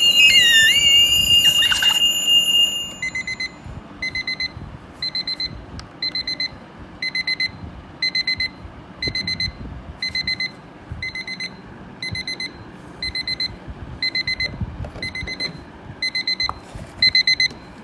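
Seiko QHK053W electronic alarm sounding: a loud steady high beep for about the first three seconds, then it switches to short groups of rapid high beeps repeating about once a second.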